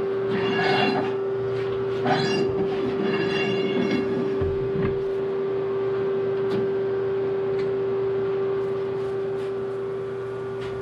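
Steel driveshaft being handled on a metal lathe bed, giving metallic clanks and scraping during the first four seconds, a few lighter clicks after, over a steady machine hum.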